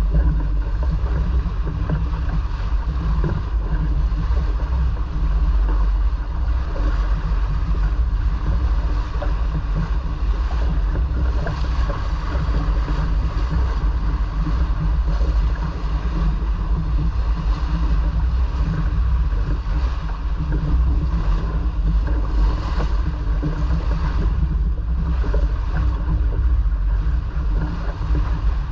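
Steady rush of wind buffeting the microphone and water washing along the hull of a sailboat under way.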